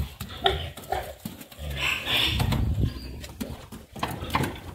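Young purebred Pietrain boar grunting as it walks on a concrete floor, with short taps from its hooves.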